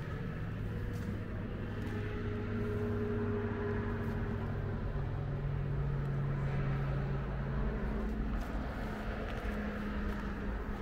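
Low, steady engine hum of a motor vehicle running, its pitch stepping up about four seconds in.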